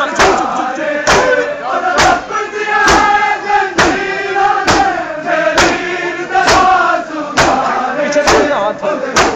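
A large crowd of male mourners chanting a noha, a Shia lament, together, with loud claps of chest-beating (matam) in unison at a steady beat of a little over one a second.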